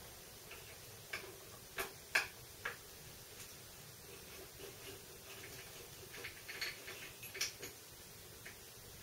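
Scattered light metallic clicks and ticks of a hex key turning bolts in the metal end plate of a milling-machine table, in two clusters, over a faint steady hum.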